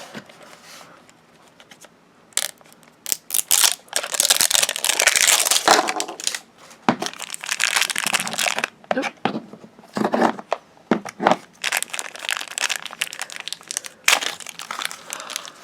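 Crinkly plastic wrapping of an LOL Surprise ball being torn and crumpled in irregular bursts, with sharp clicks and crackles, as its layers are peeled open.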